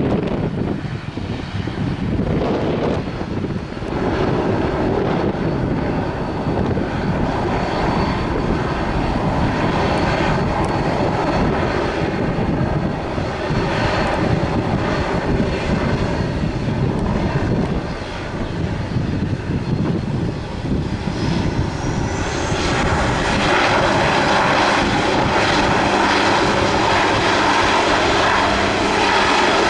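Airliner engine noise with irregular low rumbling, likely gusty wind on the microphone. Near the end a high whine rises in pitch and the engine sound gets louder.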